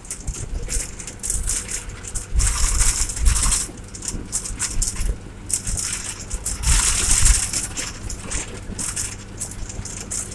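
Cabin noise of a Tata diesel bus moving at road speed, heard from inside: a steady low engine drone under rattling and clattering of the bus body and fittings. The rattling swells twice, about two seconds in and again near seven seconds.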